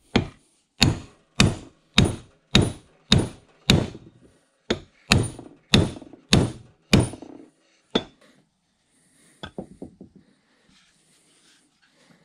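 Brass hammer striking the steel shaft of a Bridgeport 6F power feed, driving it down through its bearing: about a dozen sharp metallic blows at roughly two a second, then one more blow and a few lighter knocks near the end. The hub and spiroid gear are jammed against the bearing to keep it seated while the shaft is tapped through.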